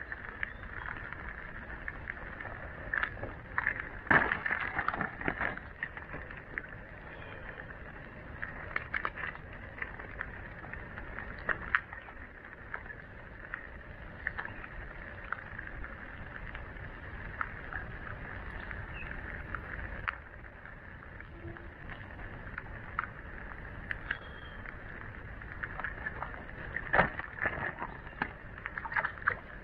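Irregular splashes and knocks in shallow creek water over a steady high-pitched hum. The splashes come thickest about four seconds in and again near the end.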